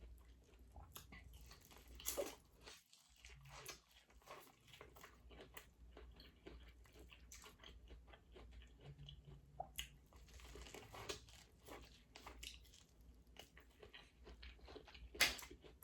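A person eating seafood boil: faint, close chewing and biting with many small wet clicks and crunches, a louder crunch about two seconds in and another near the end.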